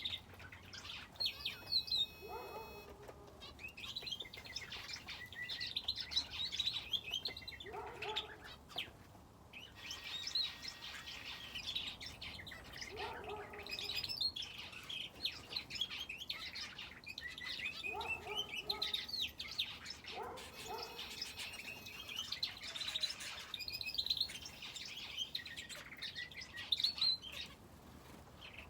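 Aviary finches and a canary chirping and twittering continuously, dense high calls overlapping one another. A lower, short call comes in about every five seconds.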